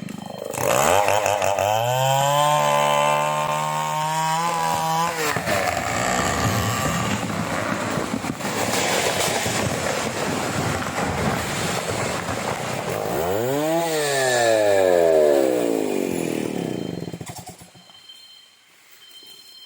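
A two-stroke chainsaw revs up to a high, steady scream. It then runs under load in a long noisy stretch, typical of cutting into merbau hardwood. Its pitch dips sharply and climbs back about two-thirds of the way through, then the saw dies away near the end.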